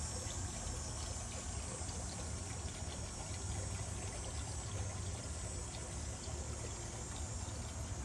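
Garden water fountain trickling and splashing steadily, over a steady low rumble.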